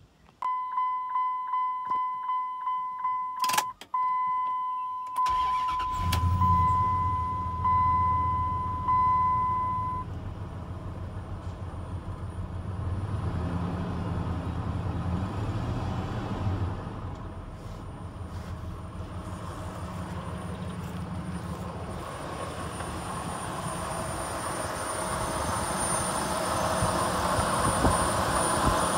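2003 Dodge Ram 1500 started with the driver's door open. The door-ajar warning chime dings rapidly, then a click as the key turns, and the engine fires about five seconds in. It settles into a steady idle while the chime goes on as a held tone for a few more seconds. Near the end the idle grows louder, heard close to the open engine bay, with a thin high whine over it.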